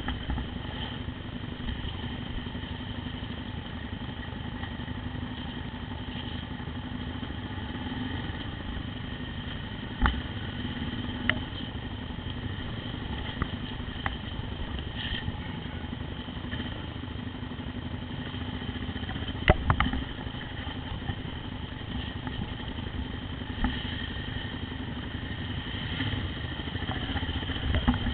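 Motorcycle engine running steadily at low speed on a rough trail, with a few sharp knocks and clatters, the loudest about twenty seconds in.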